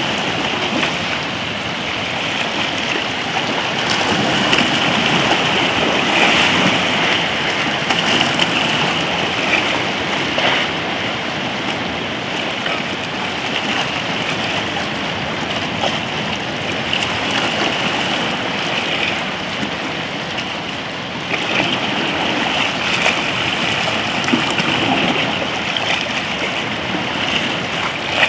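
Choppy shallow seawater sloshing and lapping around rocks near the shore, a steady rush of small waves.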